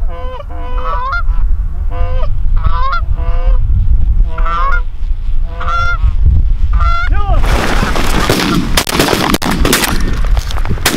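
A flock of Canada geese honking repeatedly as they fly in, over a steady low rumble of wind on the microphone. About seven seconds in the honking gives way to a dense, noisy rush with several sharp cracks.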